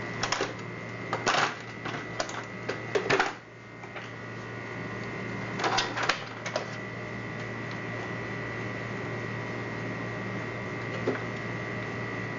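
Clicks and knocks of small plastic and metal parts being handled while the power wire is fitted into a portable garment steam iron, a few sharp ones in the first half, over a steady electrical hum.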